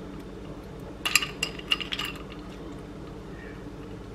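A cluster of light metallic clinks about a second in, from a ring of metal measuring spoons handled as tablespoons of ice water are spooned into the pie-crust flour, over a steady low hum.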